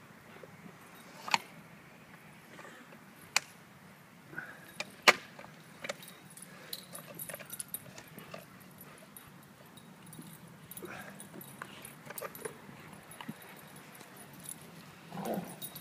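Great Dane puppies playing, with jingling like collar tags and sharp clicks: a few loud clicks in the first five seconds, then lighter scattered clicks and rustles.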